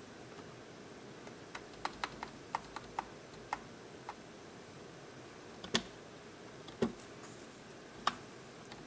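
Keys of a computer keyboard being typed: a quick run of about eight keystrokes, then three louder, separate key presses.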